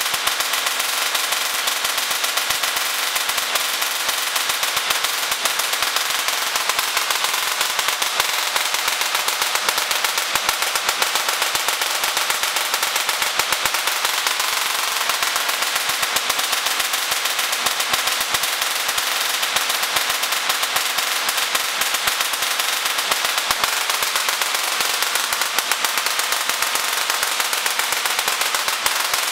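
Rotary spark gap Tesla coil running: a steady, rapid crackle of sparks, so fast that the cracks merge into one harsh buzz.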